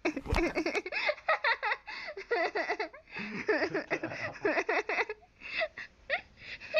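People laughing and giggling in quick, choppy bursts, picked up by a handheld phone, with a sharp bump from the phone being handled right at the start.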